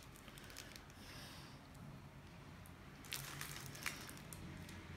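Faint soft handling noises and a few light clicks as slices of cooked ham are laid out on a piadina.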